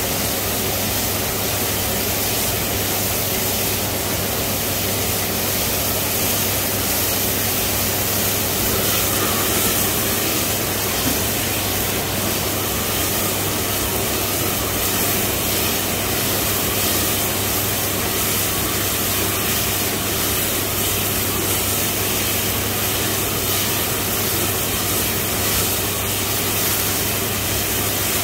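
Gas burner of an automatic robot wok running steadily under the rotating wok: an even rushing noise with a low hum underneath.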